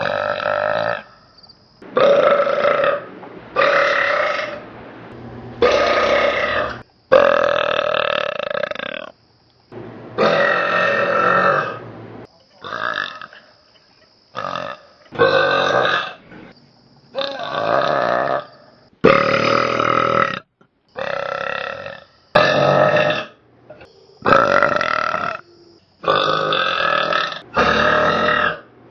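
A person burping loudly and deliberately over and over, about sixteen long pitched belches with short pauses between them, made without any soda or juice.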